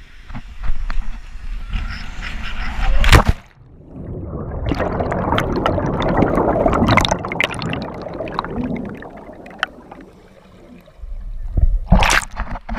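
Wind rushing over a diver-worn camera during a high dive, building up to a loud splash as the diver enters the pool about three seconds in. Then muffled underwater bubbling and gurgling, with another loud splash near the end.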